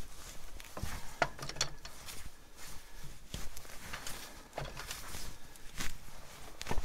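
Irregular metallic clicks and knocks, a few seconds apart, as hands handle the three-point lift arm and its locking-ring hardware on the shaft.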